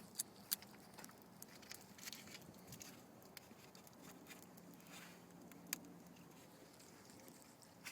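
Campfire of dry leaves and twigs crackling faintly, with scattered sharp snaps.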